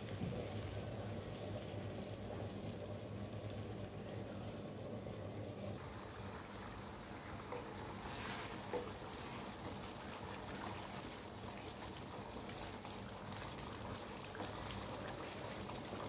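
Chopped tomatoes simmering into sauce in a frying pan, a faint steady bubbling, with a few light knocks of a wooden spoon stirring.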